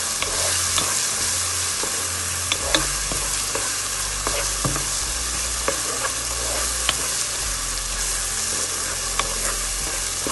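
Sliced onions and ginger-garlic paste sizzling in hot oil and ghee in a nonstick pot, stirred with a wooden spatula that gives scattered light taps and scrapes against the pot. The paste is being sautéed to cook off its raw smell.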